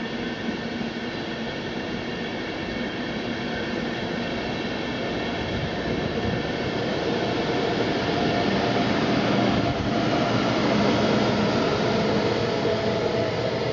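Passenger coaches of a departing EuroCity train rolling past, pushed by a DB Class 101 electric locomotive at the rear. The wheel and rail rumble grows louder toward the end as the locomotive comes by, with a few faint steady hums under it.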